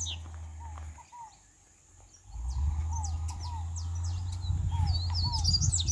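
Papa-capim seedeater singing: quick high twittering chirps and short glides, busier in the second half. A repeated pair of lower falling notes comes every second or so, and a steady low rumble sits underneath, dipping away briefly about a second in.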